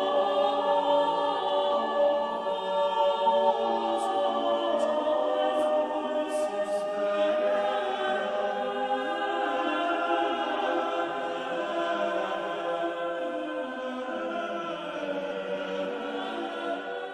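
Background music of choir voices singing slow, sustained chords.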